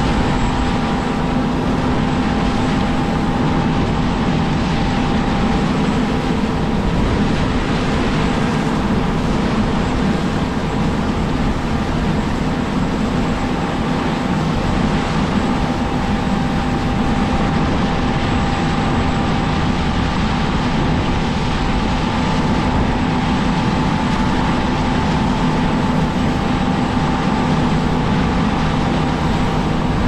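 Heavy farm harvest machinery running steadily through a soybean harvest: a constant low drone with a steady high whine on top.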